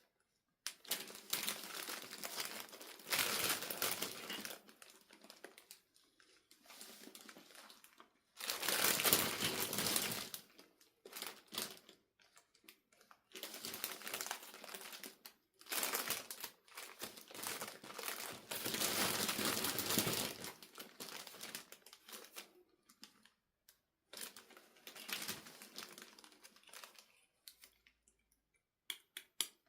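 Plastic packaging crinkling and rustling as it is handled, in repeated bursts of a second or two with short pauses between.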